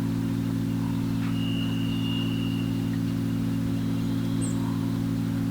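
Steady low hum made of several unchanging pitches, with a faint high whistle-like tone about a second in and a brief faint chirp near the end.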